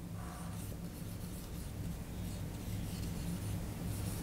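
Marker pen writing on a whiteboard: faint rubbing strokes of the felt tip across the board.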